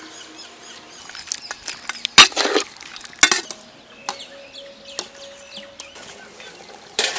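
A metal ladle knocking against an iron wok: two sharp clacks about two and three seconds in, the first the loudest sound here. Birds chirp steadily in the background.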